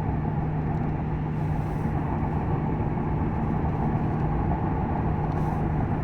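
A 2001 Ford Crown Victoria cruising up a mountain grade, heard from inside: a steady low engine hum under even road and tyre rumble.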